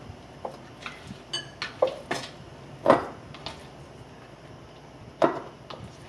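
Kitchen knife knocking on a cutting board as raw chicken breast is cut into cubes, then chicken pieces handled and packed into glass canning jars. Scattered irregular knocks and clicks, the loudest about three seconds and about five seconds in.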